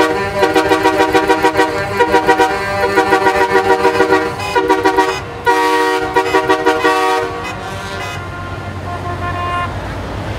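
Vehicle horn honked over and over in rapid toots, about five a second, in bursts with short breaks, stopping about seven seconds in. Fainter steady horn tones hang on for a couple of seconds after, over a low steady hum.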